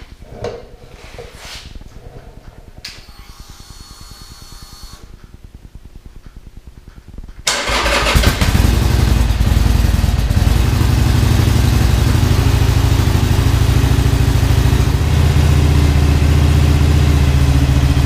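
Harley-Davidson Iron 883's air-cooled V-twin engine started from a newly wired push-button ignition switch. After a few faint clicks and a brief faint whine, it catches about seven and a half seconds in and then runs at a steady idle.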